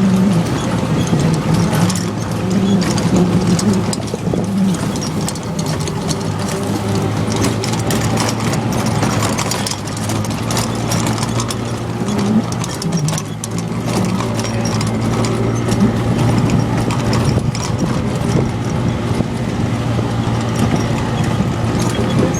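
Souped-up off-road golf cart driving along, its motor making a steady low drone while the cart body rattles and knocks over rough ground.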